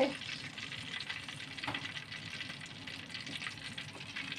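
Hot cooking oil sizzling steadily in a karahi as a fried gram-flour chili pakora is lifted out on a slotted spatula to drain.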